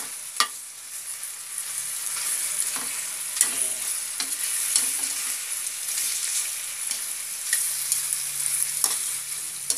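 Pork tocino sizzling as it fries in oil in an aluminium wok on lowered heat, with sharp clicks here and there as tongs turn the pieces against the pan.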